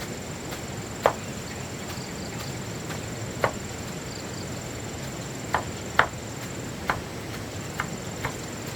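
Irregularly spaced sharp knocks, about seven of them, over a steady background hiss with a thin high steady tone.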